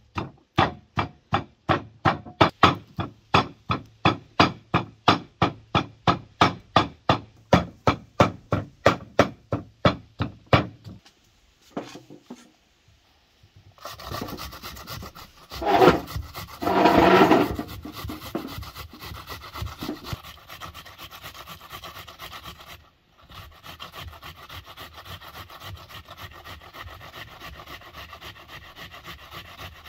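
For the first ten seconds or so, a quick regular run of sharp strokes, about three a second. After a short pause, an onion being grated on a metal box grater: a steady rasping, louder for a moment about two seconds in.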